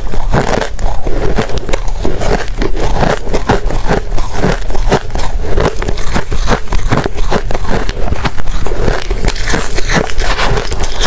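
Ice being bitten and chewed close to the microphone: loud, rapid crunching, several crunches a second without a break.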